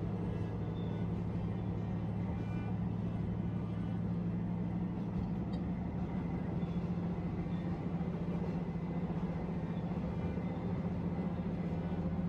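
Engine of a one-car diesel railcar running with a steady low drone at an even pitch.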